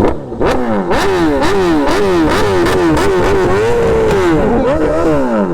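BMW S1000RR inline-four sportbike engine revved hard in quick throttle blips, about two a second, each climbing and dropping in pitch, with one longer hold near the middle and sharp cracks between blips. Really loud.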